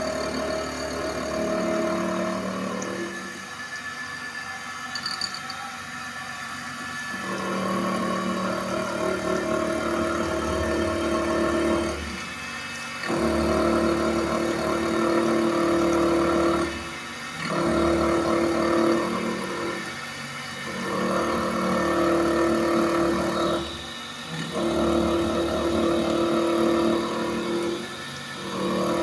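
Electric sharpening machine running with a steady hum. From about seven seconds in, its sound swells and drops back about every three to five seconds.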